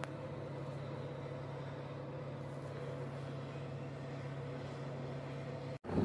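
Steady low drone of heavy machinery with a faint hum above it, at a cement carrier's loading berth during cement loading. It cuts off suddenly near the end.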